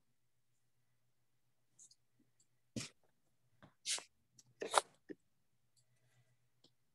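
Quiet room tone on a video-call line, with a faint steady low hum. A little before the middle and just after it come a handful of short, sharp noises: two brief clicks and two slightly longer breathy or rustling sounds, the later of these the loudest.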